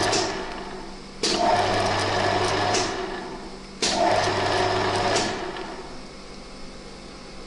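TV-4 lathe's electric motor and gearing running, then switched off and coasting down. It is started again abruptly twice for about a second and a half each time, winding down after each stop, until only a faint steady hum is left.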